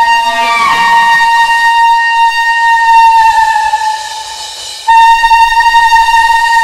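A horn blown in a long, high, steady note. It sags a little in pitch and fades about four seconds in, then is blown again strongly just before five seconds. It is sounded as the trumpet call announcing Jesus' coming.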